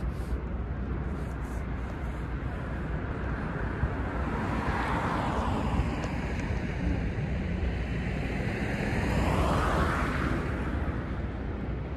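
Street traffic noise: a passing vehicle swells over a steady low rumble and is loudest shortly before the end.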